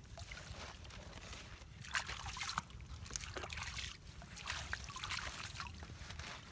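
Hands sloshing and scooping in shallow muddy water, with irregular splashes and trickles of water, the biggest about two seconds in.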